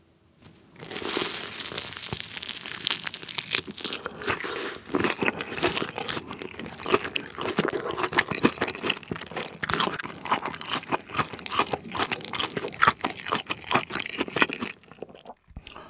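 Close-miked crunching and chewing of a battered, deep-fried Korean cheese hot dog coated in tteokbokki sauce. A crisp bite comes about a second in, followed by steady crunchy chewing that eases off near the end.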